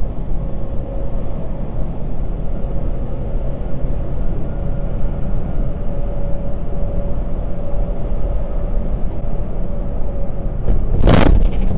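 Cab noise of a semi truck driving at highway speed: a steady low engine and road rumble with a faint steady whine. About eleven seconds in, a sudden loud burst of noise under a second long, as a neighbouring tractor-trailer cutting into the lane sideswipes the truck.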